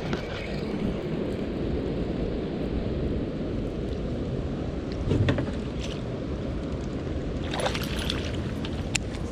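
Strong gusty wind rumbling on the microphone over open water from a kayak, with a few light knocks about five seconds in and near the end.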